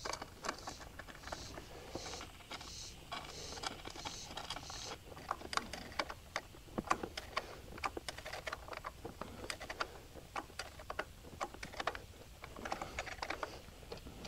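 A small metal wrench clicks and clinks against a bolt and wire ring terminals as grounding wires are bolted to an engine block: a run of quick, irregular light clicks and taps.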